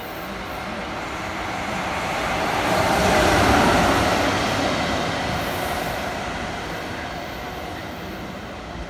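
JR EF66 electric locomotive passing at close range: a rumble and rattle of wheels on rail that grows as it approaches, is loudest about three and a half seconds in, then slowly fades.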